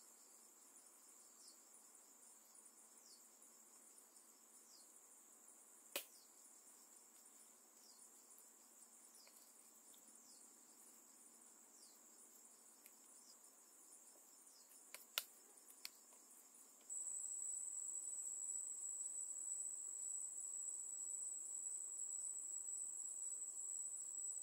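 Jungle insects trilling steadily at a very high pitch, with short falling chirps repeating every second or two. A louder insect drone comes in about two-thirds of the way through. A few sharp clicks stand out, one about a quarter of the way in and a quick cluster just past the middle.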